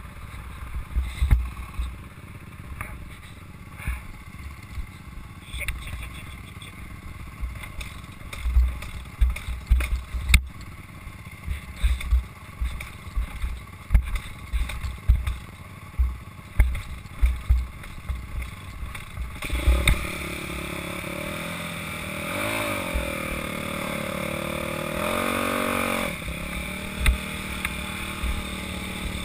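Dirt bike engine running along a rough trail, heard through a helmet-mounted camera with many irregular low thumps from the bumps and buffeting. About twenty seconds in the engine comes up louder and revs up and down twice before settling.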